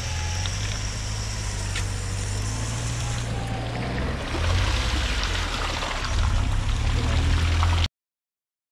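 Suzuki Jimny 4x4 engine running under load as it drives through a deep muddy, water-filled rut, with water and mud splashing around the wheels; a steady high whine sits over the engine for the first three seconds, and the engine grows louder about four and a half seconds in. The sound cuts off abruptly near the end.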